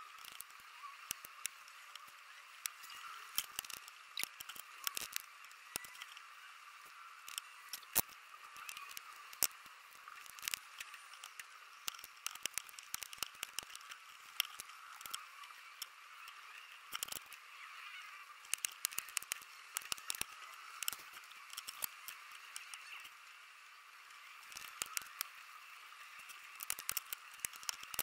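Irregular sharp clicks and snaps of a spring-loaded solder sucker firing and metal tools tapping on a battery circuit board while the solder is removed, over a steady high hiss.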